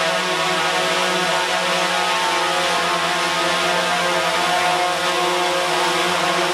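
DJI Phantom 3 quadcopter hovering, its four propellers making a steady multi-pitched whine that wavers slightly as the motors hold it in place.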